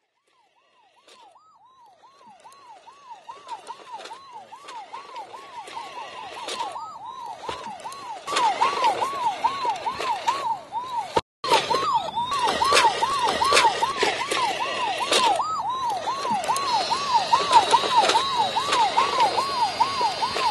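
Electronic siren of a toy remote-control fire truck, sounding a fast up-and-down wail of about two and a half cycles a second. It fades in and grows steadily louder as the truck approaches, with a brief cut-out about halfway through. Clicks and rattles run over it.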